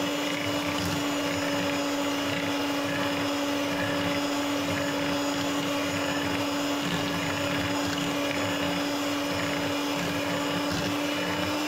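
Electric hand mixer running steadily at one speed, its beaters whipping cream. The motor gives an even whine that holds the same pitch throughout.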